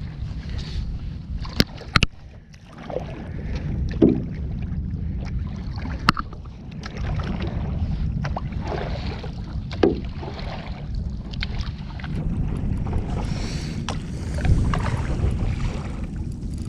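Paddle strokes through the water from a stand-up paddleboard, a swish every couple of seconds with a few sharp knocks, over a steady rumble of wind on the microphone.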